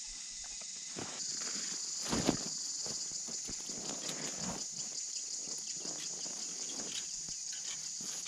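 Cicadas droning steadily, high and even, stronger from about a second in. Beneath them are close rustling and steps in grass, with one sharp thump a little after two seconds.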